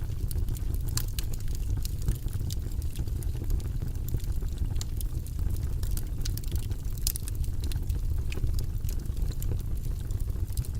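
Wood fire in a fireplace crackling: scattered sharp pops and snaps, a few louder than the rest, over a steady low rumble of the flames.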